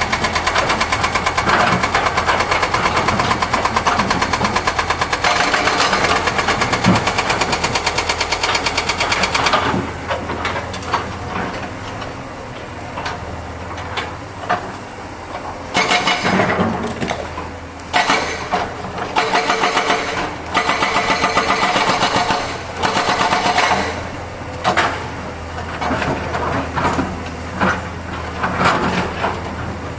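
Excavator diesel engine running hard at high revs, dropping to a lower running level about ten seconds in, then surging up again in short bursts every couple of seconds as the machine is worked.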